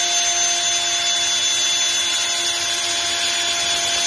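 Power drill running at a steady speed with a steady whine, spinning a card stock sheet on its Phillips bit, with a marker tip rubbing on the whirling paper.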